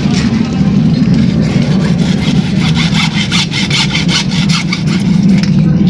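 Hacksaw cutting a CPVC pipe in a run of quick, even rasping strokes, over a steady low hum.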